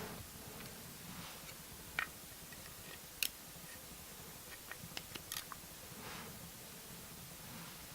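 A few sharp, scattered clicks and ticks of small metal lock parts being handled, the loudest about two, three and five seconds in. The pins and springs are being taken out of an old five-pin Yale pin-tumbler lock as it is gutted.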